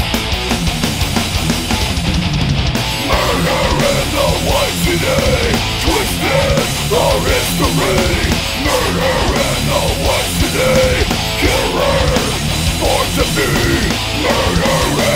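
Heavy metal band recording: distorted guitars, bass and drums playing a loud, driving instrumental passage. A wavering lead line with bends comes in about three seconds in.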